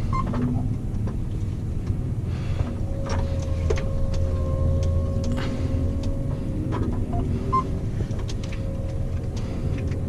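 John Deere T670i combine harvester running at working revs while cutting oats: a steady low engine and machinery drone with a faint steady whine and a few light clicks.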